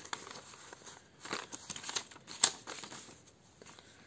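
Paper banknotes and cash envelopes being handled: rustling and crinkling in short bursts, with a sharp tap about two and a half seconds in.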